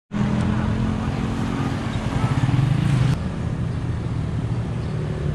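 Motor vehicle engine running steadily close by, a little louder around two and a half seconds in, with the sound changing abruptly just after three seconds.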